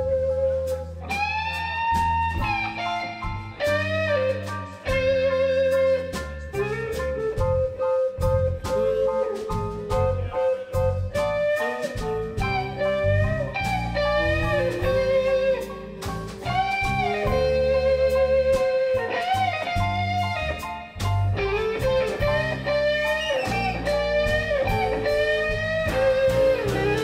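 Live blues band playing an instrumental break: a lead electric guitar line with bent, wavering sustained notes over bass and drums.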